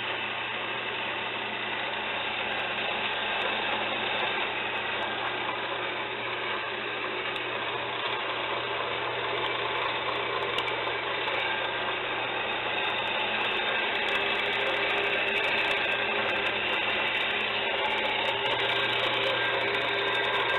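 Metal-cutting bandsaw running steadily, its blade sawing through the steel wall of an old CO2 tank. The steady mechanical hum grows slightly louder in the second half.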